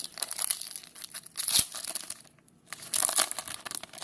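A trading card pack's wrapper being torn open and crinkled by hand, in uneven rustling bursts with a brief pause partway through.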